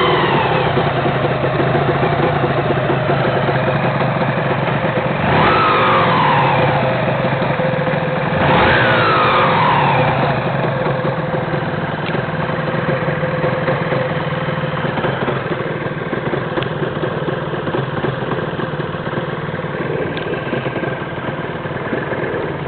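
Honda NSR250 (MC21) two-stroke V-twin idling, blipped twice about 5 and 8.5 seconds in, its pitch jumping up and falling back each time. It carries a heavy mechanical noise that the owner traces to the primary drive gear area of the freshly rebuilt engine, and that remains after swapping in a used transmission and primary drive and driven gears.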